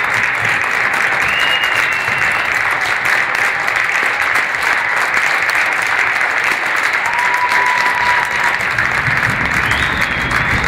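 Audience applauding, a dense, steady clapping; a few short high-pitched calls rise above it.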